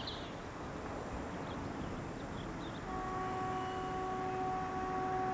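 An HST Class 43 power car's air horn begins about three seconds in and holds one steady note, over a low steady rumble.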